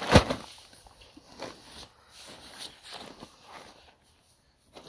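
Handling sounds: a sharp knock right at the start, then faint rustling and scuffing as a towel is wiped over a motorcycle tire lying on a plastic tarp.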